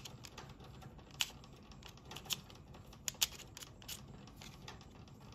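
Scattered light clicks and taps of airsoft pistol parts being handled and fitted together, a handful of sharp knocks at irregular intervals.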